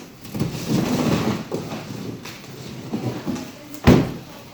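Rustling and knocking handling noises, then one sharp knock about four seconds in.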